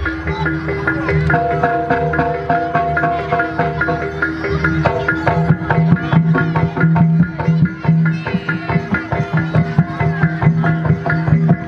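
Live gamelan-style accompaniment for a kuda kepang dance: hand drums beating a dense rhythm over ringing pitched percussion with held notes.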